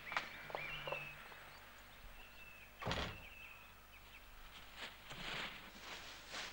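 Outdoor ambience of short bird calls and a few sharp clicks, with one dull thump about three seconds in and a brief rustle near the end.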